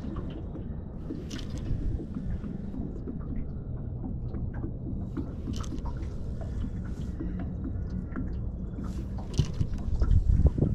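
Outdoor boat ambience: a steady low rumble of wind on the microphone and water around a small boat's hull, with a few light clicks from handling a spin rod and reel. A louder rumble comes near the end.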